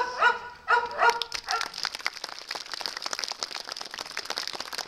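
A dog barks about five times in quick succession, then a crowd applauds.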